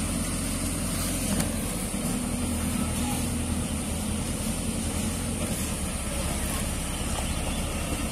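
JCB 3DX backhoe loader's diesel engine running steadily as the machine drives slowly on a dirt road.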